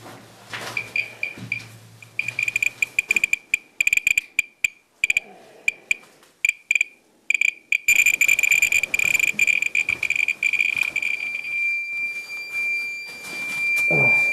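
Handheld radiation meter beeping as it is held over highly radioactive debris: high-pitched beeps that come faster and faster until they run together into one steady alarm tone about two thirds of the way in, the sign that the dose rate has driven the meter into overload.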